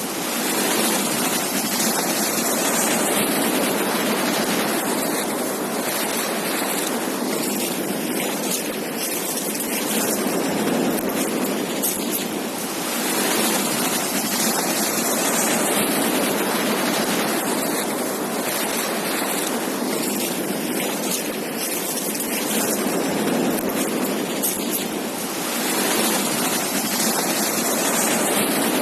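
Ocean surf: waves breaking and washing up on a beach, a steady rushing noise that swells and eases every few seconds.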